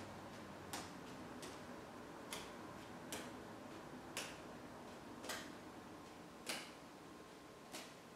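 Sharp clicks of juggling balls being caught and knocking together, about one a second, the gaps slowly widening.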